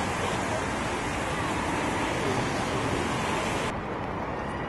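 Steady hiss of rain falling, with faint murmur of people's voices. Near the end the upper part of the hiss drops off sharply at a cut to a quieter recording.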